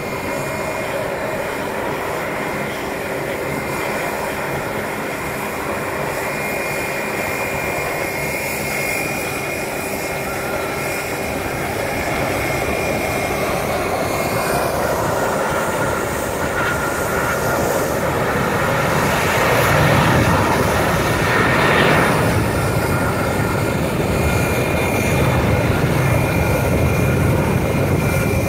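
Airliner jet engines running on the airfield: a steady whine over a broad rumble that grows louder through the middle and peaks about two-thirds of the way in.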